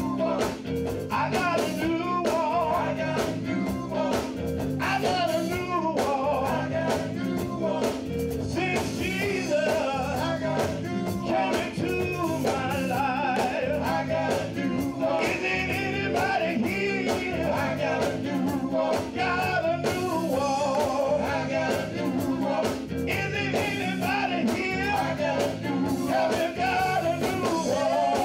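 Live gospel group of male singers in harmony, backed by a band with guitar, over a steady beat.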